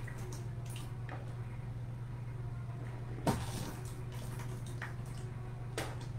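A man vomiting after swallowing Carolina Reaper hot sauce: a few short, separate sounds, the loudest about halfway through, over a steady low electrical hum.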